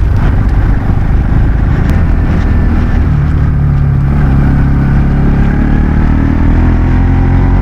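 Motorbike engine running steadily while being ridden, under loud wind and road rumble. Its engine note comes through more clearly about three seconds in.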